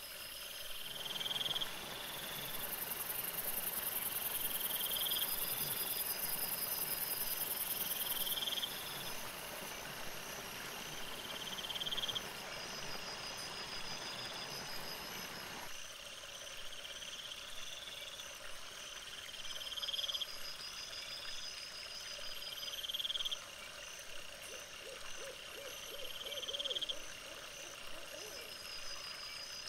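Night insects chirping and trilling in a steady, repeating pattern, over the rustling of wild boar rooting through dry leaf litter that stops abruptly about halfway through.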